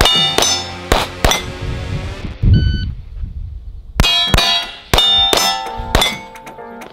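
Pistol fired in quick succession at steel target plates, each shot followed by the ringing clang of a hit plate. The shots come in two quick runs with a pause of about two seconds in the middle.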